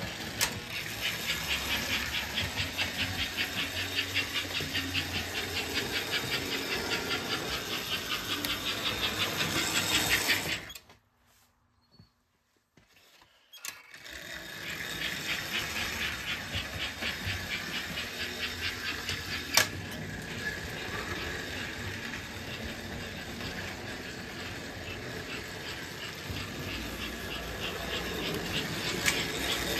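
American Flyer S-gauge toy steam train running on the layout: a steady hissing run with a fast, even rhythm. The sound breaks off almost completely for about three seconds partway through, then picks up again, and there is one sharp click a few seconds later.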